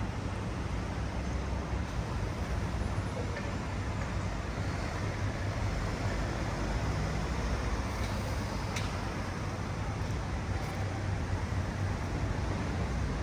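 Steady city traffic noise: a continuous rumble of passing vehicles with no single event standing out.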